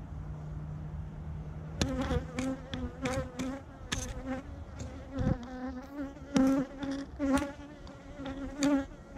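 Honeybees buzzing close to the microphone around an opened hive: a wavering, pitched buzz that comes and goes as bees fly past, starting about two seconds in, with many sharp clicks and taps mixed in. A low steady hum fills the first two seconds.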